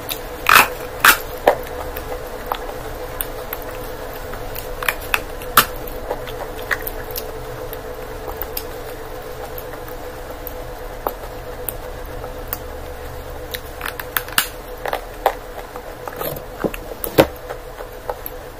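Close-miked eating: bites into a thin flatbread and chewing, with sharp crunchy clicks scattered irregularly throughout, a cluster of the loudest in the first two seconds and more near the end. A steady low hum runs underneath.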